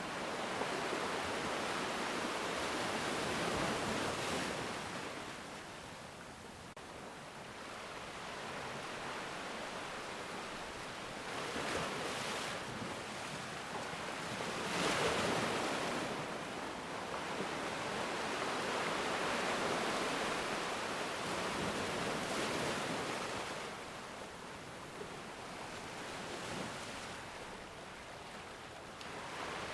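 Ocean surf: waves breaking and washing in, a steady hiss that swells and fades every few seconds, loudest about halfway through.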